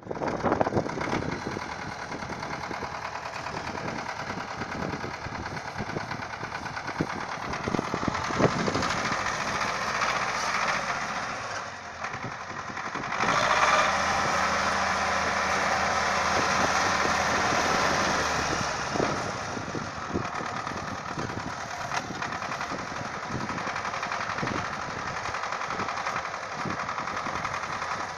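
An engine running, with many sharp knocks throughout; it gets louder for about five seconds a little past the middle.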